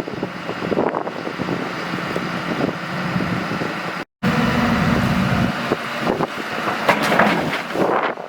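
Diesel engine of a Hyundai HX260L excavator running steadily, with wind on the microphone. The sound cuts out for a moment about four seconds in, then returns with a heavier low rumble and some irregular clatter.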